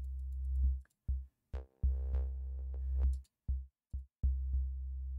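Background electronic music: a deep bass line of short and long notes that stop and start, with drum-machine hits.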